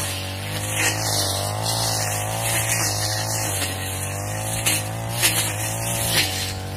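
Petrol brush cutter running at cutting speed through thick grass and weeds, its engine pitch wavering gently up and down as the load changes. A few sharp clicks come in the second half.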